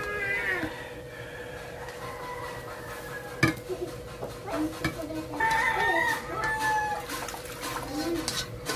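Chickens clucking and crowing, with calls at the start and a longer one from about five and a half seconds in, over a faint steady hum. A sharp clink of metal tongs against dishware comes about three and a half seconds in.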